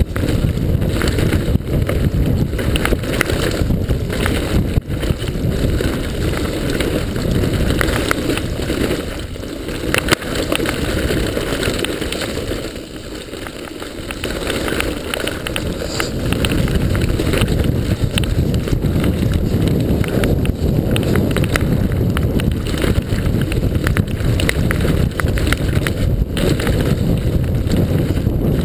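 Wind buffeting the microphone of a mountain bike descending a rough dirt trail, mixed with constant rattles and knocks from the bike's frame, chain and suspension over roots and ruts. It eases off for a few seconds about halfway, then picks up again.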